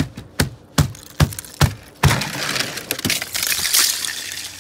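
Ice glazing on a truck being cracked and snapped off by hand: five sharp cracks about every half second, then about two and a half seconds of dense crackling and crunching ice.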